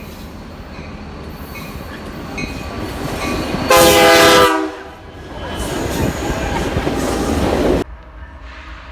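Approaching train with a short multi-tone horn blast of just under a second, several notes sounding together as a chord. The train's rumble then builds as it passes and cuts off abruptly near the end.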